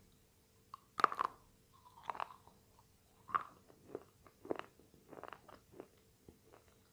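Slate pencil being bitten and chewed: a sharp, loud crunch about a second in, followed by a string of shorter crunching chews.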